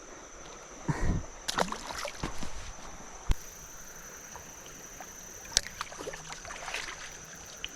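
Creek water splashing and sloshing with a few sharp clicks and knocks, over a steady high-pitched insect drone.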